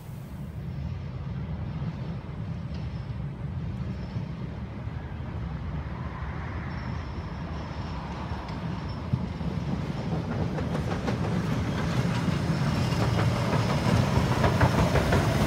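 HSB metre-gauge 2-10-2 tank steam locomotive 99 236 and its coaches rolling into a station: a low rumble grows steadily louder as the train nears, with a rapid clatter of wheels on rail joining in over the second half.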